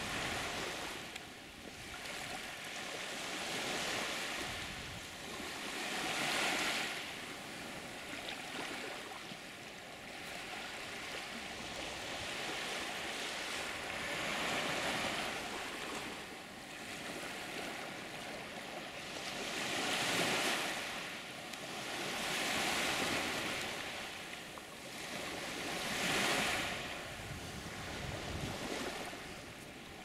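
Small Indian Ocean waves washing onto a sandy beach, the surf swelling and fading every few seconds.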